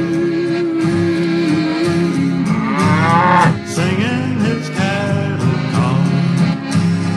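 A cow mooing once, a long call that rises and falls, over a country song with guitar.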